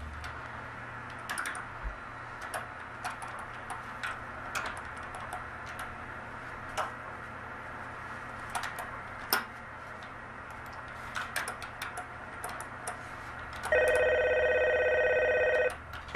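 Corded desk telephone ringing once, a loud pitched ring lasting about two seconds near the end. Before it, light irregular clicks.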